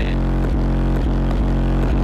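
Bass-heavy music with a steady beat played loud through a car stereo and its subwoofer, heard inside the car's cabin.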